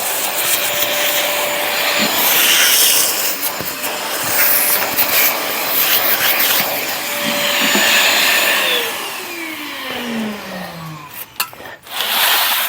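Vacuum cleaner running, sucking up dirt and old grease buildup scraped from a cast-iron drill press base. Its motor is switched off about three-quarters of the way through and winds down with a falling whine. A few clicks and a short burst of noise follow near the end.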